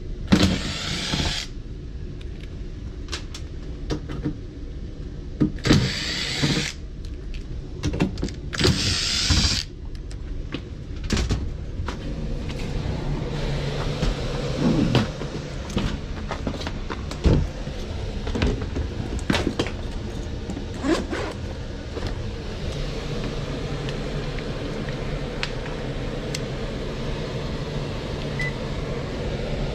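Cordless Makita impact driver running in three short bursts in the first ten seconds, backing out the screws of the air handler's sheet-metal access panel. After that comes a steady motor hum with a few clicks and clanks from the panel and the metal cabinet.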